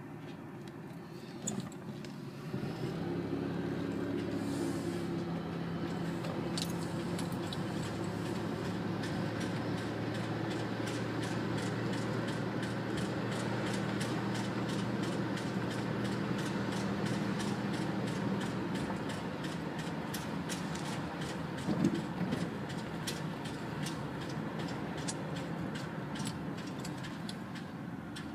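Buick Regal engine running with a fast, even ticking from the engine; the engine's hum gets louder about two and a half seconds in and eases off again in the later part.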